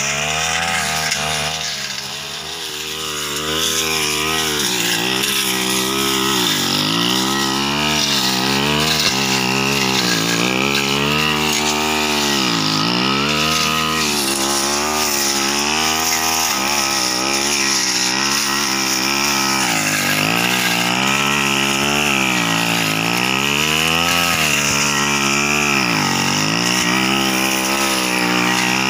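Backpack brush cutter's small petrol engine running at high revs, its pitch dipping and recovering every couple of seconds as the cutting head bites into ferns and scrub.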